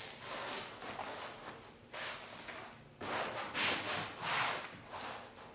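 Hands rubbing and sliding over foam wing cores as they are pressed down into their foam bed: a run of dry scuffing and rustling strokes, the loudest in the second half.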